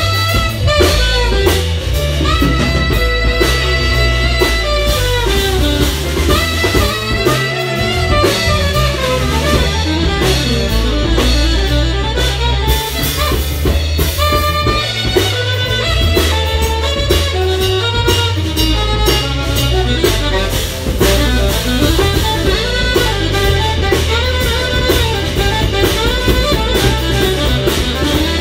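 Live jazz-fusion band playing: saxophone over electric guitar, keyboard, bass guitar and drum kit.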